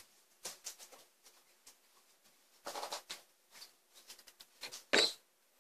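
Scattered light clicks and rustles of someone moving about and handling things at the table, with a sharper knock about five seconds in.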